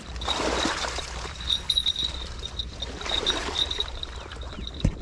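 Someone wading through shallow marsh water and water hyacinth, the water swishing and trickling in two swells. A thin, high, steady ringing comes and goes throughout, and there is a sharp click just before the end.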